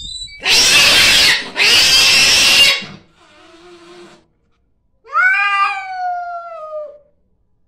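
Calico kitten hissing twice in quick succession at its own reflection in a mirror, then giving one long yowl that falls in pitch.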